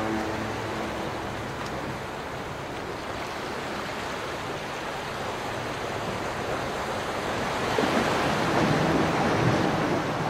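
Ocean surf washing in a steady hiss that swells louder about eight seconds in.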